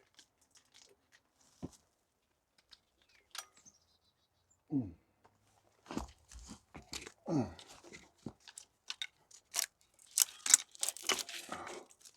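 Burnt, brittle wiring-harness plastic and loom being handled and pulled apart by hand: scattered clicks and crunches, building to a dense crackling near the end.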